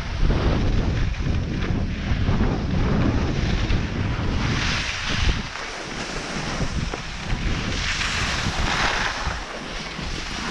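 Wind buffeting the microphone of a body-worn camera during a downhill run on groomed snow, a heavy low rumble that eases a little after about halfway. Hissing scrapes of edges carving over the snow come through twice, around halfway and near the end.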